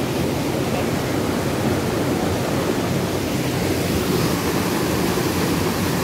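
Waterfall water rushing steadily, white water cascading over rocks in a continuous, even rush.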